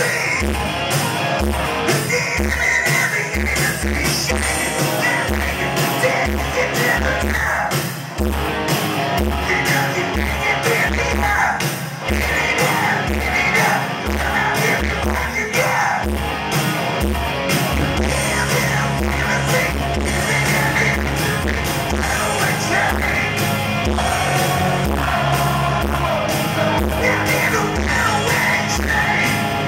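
Live hard rock band playing loud: electric guitars through Marshall amps, bass and drums with a steady kick-drum beat, and a man singing lead over them.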